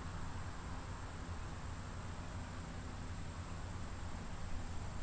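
Steady outdoor background: a constant high-pitched insect drone over a low rumble, with no distinct events.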